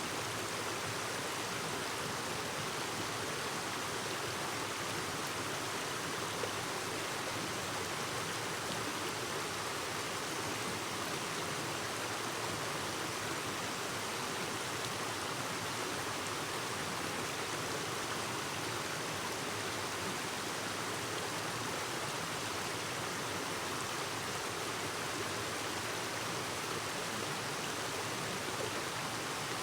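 Clear mountain stream babbling over rocks: a steady, even rush of running water.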